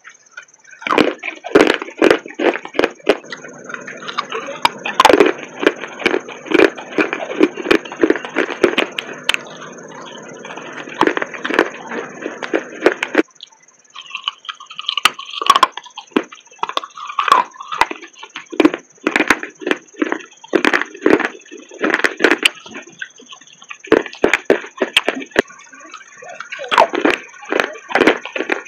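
Crunching and chewing of clay pot chunks: a rapid run of crisp crunches with short pauses between bites.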